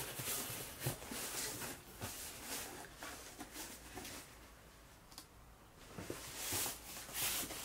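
Cardboard shipping box being opened and handled: irregular rustling and scraping of the cardboard flaps and packing, quieter for a stretch in the middle, then busier again near the end.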